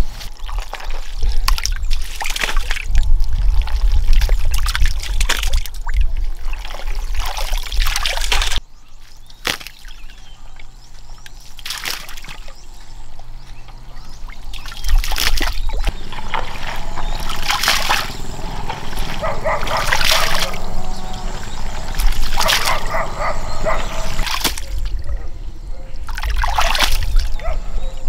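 Shallow muddy water splashing and sloshing as a person wades barefoot in a ditch and gropes through it with her hands for fish. The splashes come thick and repeated in the second half.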